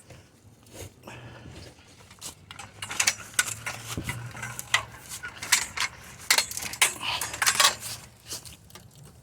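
Metal scrap being worked by hand: irregular clinks, knocks and rattles of metal on metal, thickest from about three seconds in until near the end.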